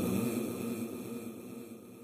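The reverberating tail of a male Quran reciter's chanted voice, dying away steadily after a long held note.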